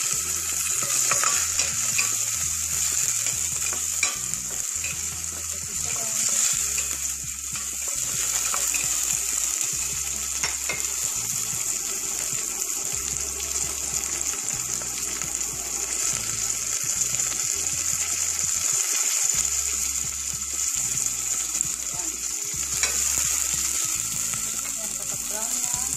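Sliced onion, ginger, garlic, chili and lemongrass sautéing in a little hot oil in a stainless steel pot: a steady frying sizzle with a few faint clicks.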